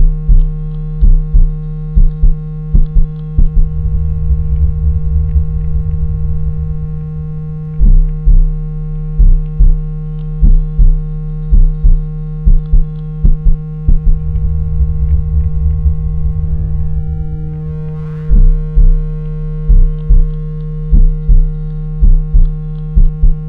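Synthesized water-eject tone meant to shake water out of earbud speaker mesh: a steady low tone near 160 Hz with a fainter higher tone over it, punctuated by repeated low bass pulses about one or two a second. In two stretches the pulses give way to a sustained low rumble, and faint rising-and-falling sweeps run high above.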